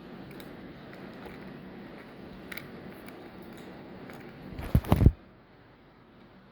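Plastic coin capsule being handled, with a short burst of loud clicks and crackle about four and a half seconds in, after which the handling noise drops away.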